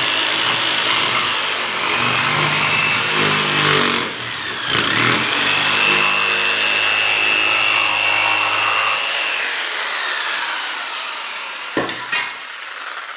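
Ryobi jigsaw cutting plywood: the blade's steady sawing with a high motor whine, which dips and recovers once about four seconds in, then winds down about ten seconds in. Two light knocks near the end.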